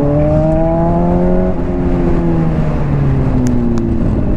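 Honda CBR600RR inline-four through a slip-on exhaust, pulling in gear with its note rising, then the throttle closes about a second and a half in and the note falls steadily as the bike slows down.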